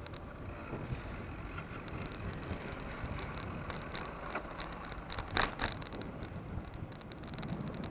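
Cross bike being ridden, heard through an action camera: a steady rumble of tyre, road and wind noise with scattered small clicks and rattles, and one sharper rattle about five and a half seconds in.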